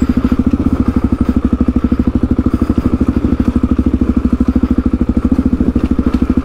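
Suzuki DR-Z400's single-cylinder four-stroke engine running at low, steady revs with a rapid, even pulse as the bike rolls down a steep track.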